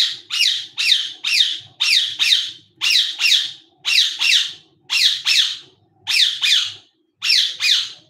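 Indian ringneck (rose-ringed) parakeet giving a run of loud, shrill squawks, about two a second and often in pairs, each call falling in pitch.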